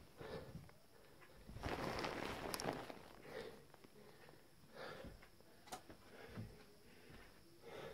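Faint rustling and soft movement noises, with a louder stretch of rustling about two seconds in and a single sharp click near the middle.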